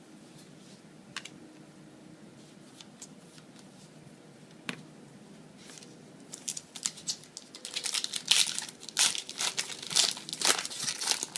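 Foil booster pack wrapper being crinkled and torn open. A few faint clicks come first, then dense, loud crackling starts about six seconds in.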